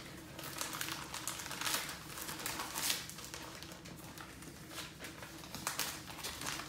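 Clear plastic bag crinkling and small paper comics rustling as they are handled, in light, irregular clicks and rustles.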